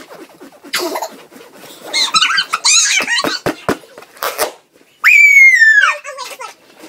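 Girls squealing and giggling in high voices, then a loud, shrill shriek about five seconds in that slides down in pitch and breaks off.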